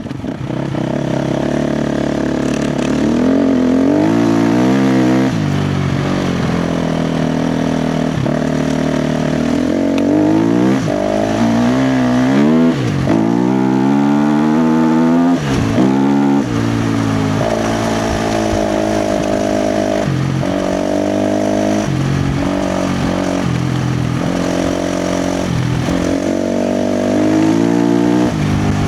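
KTM 350 XC-F dirt bike's single-cylinder four-stroke engine under hard throttle, its pitch climbing and falling back again and again, with brief drops as the throttle is snapped shut several times.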